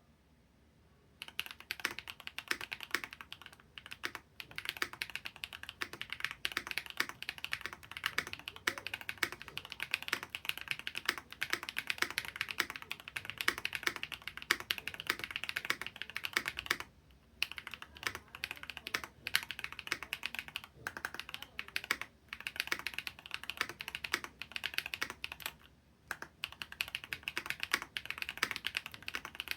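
Rapid continuous typing on a Zoom75 mechanical keyboard with an aluminium plate and Gateron Type R switches, fast keystrokes clacking, starting about a second in with a few short pauses.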